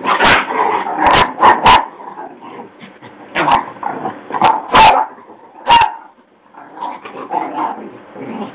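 Dogs barking in rough play over a stuffed toy: about eight sharp barks in clusters over the first six seconds, then quieter growling-type sounds near the end.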